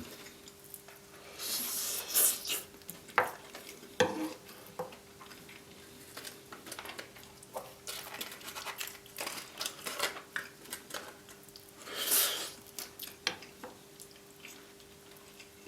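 Plate and cutlery clinks and the handling of food while a chicken taco is put together with hard taco shells: scattered light knocks and clicks, with two louder rustling or crunching stretches, one about two seconds in and one near the end. A faint steady hum runs underneath.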